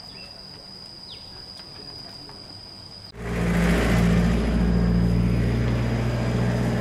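A motor vehicle's engine running at a steady speed close by. It cuts in abruptly about three seconds in, over an outdoor background with a steady high-pitched insect buzz.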